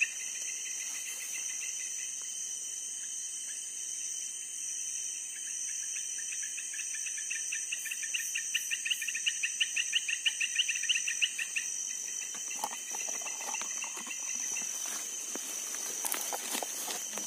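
Night insect chorus: a steady high-pitched drone with a nearby cricket chirping in a fast, even run of pulses that stops about two-thirds of the way through. Rustling and crackling of leaves and twigs come in near the end.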